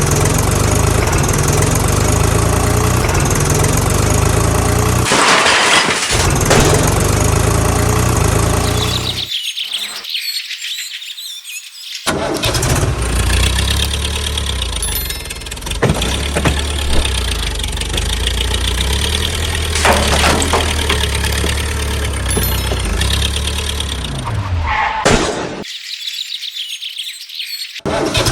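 Heavy diesel engine running steadily, like a tractor or backhoe loader at work, with birds chirping. The low engine sound cuts out abruptly twice for about two seconds, leaving only thinner higher sounds.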